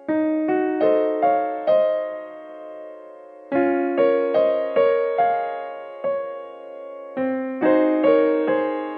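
Background piano music: a gentle melody of struck notes that ring and fade, played in short phrases of four or five notes with brief pauses between them.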